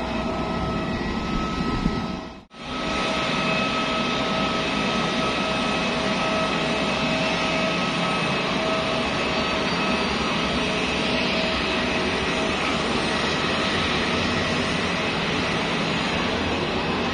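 Steady noise of jet airliners on an airport apron: a loud rushing hiss with a steady whine over it, broken by a brief dropout about two and a half seconds in.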